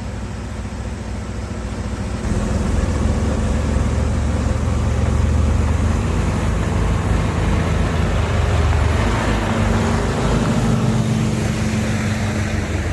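Dump truck's diesel engine running under load while it unloads hard pack. The engine gets louder about two seconds in and holds steady.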